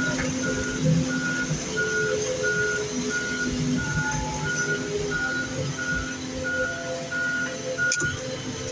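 Backup alarm beeping steadily about twice a second over the running engine of a loader as it reverses, stopping shortly before the end.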